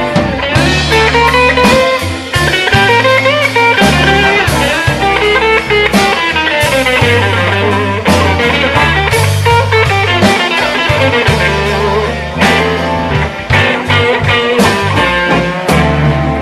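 Live band playing an instrumental passage: electric guitar lines with bent, gliding notes over bass and drums with cymbal crashes.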